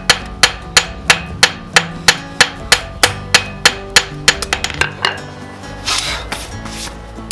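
Hand hammer striking steel on an anvil, forging a kukri blade in a steady rhythm of about three blows a second. It finishes with a few quicker, lighter taps, and a short burst of hiss follows near the end.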